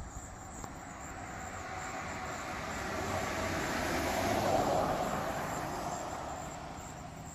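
A vehicle passing by: a broad rushing noise that slowly swells to its loudest about four and a half seconds in, then fades away, over a faint steady high chirring of insects.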